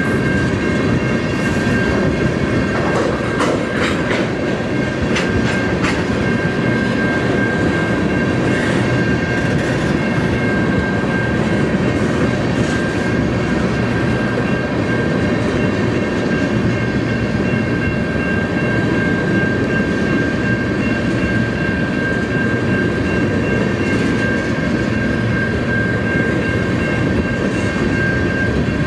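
Freight train of tank cars rolling past at steady speed: a continuous rumble with wheel clatter over the rail joints, a few sharp clicks, and a steady high tone running over it.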